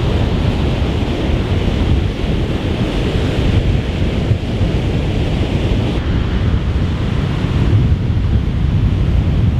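Strong wind buffeting the microphone over the steady wash of waves breaking on a sand-and-shingle beach.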